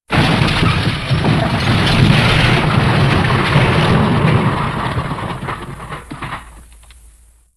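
MGM elephant smash sound effect: a rumbling crash that starts abruptly, holds loud for about five seconds, then dies away over the last two seconds.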